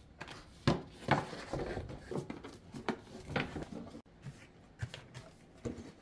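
Small padded gift packets being handled and packed into a cardboard gift box: a string of soft rustles and light knocks, with the box lid fitted on near the end.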